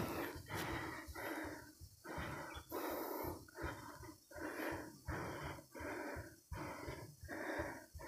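A person breathing hard in quick, regular in-and-out breaths, out of breath from climbing a steep hill on foot.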